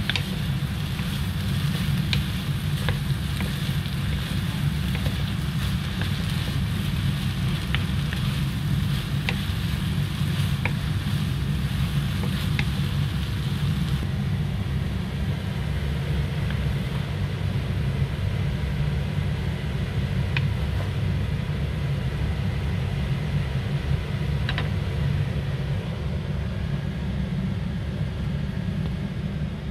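A steady low rumble, over faint sizzling of diced pumpkin and egg frying in a nonstick pan and light clicks of a wooden spatula against the pan; the sizzle thins out about halfway through.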